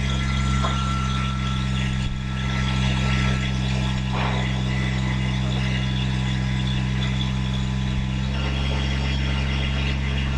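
An engine idling steadily, with one brief sharp knock about four seconds in.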